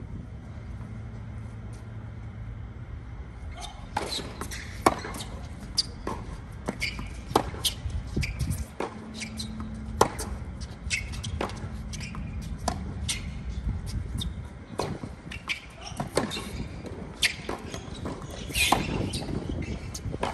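Tennis ball struck back and forth in a rally on a hard court: a string of sharp pops from racket hits and ball bounces, starting about four seconds in and coming roughly once a second.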